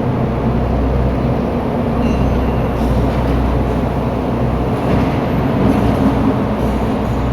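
A heavy diesel engine running steadily under load, a low, even rumble with no breaks.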